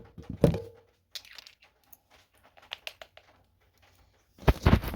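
Scattered small clicks and light rustling handling noises, then a quick cluster of louder knocks near the end.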